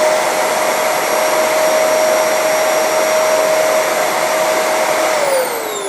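Kenmore vacuum cleaner motor running at full speed with a steady high whine, then switched off about five seconds in and winding down with a falling pitch. It runs normally on its freshly repaired power cord, which had been shorting out.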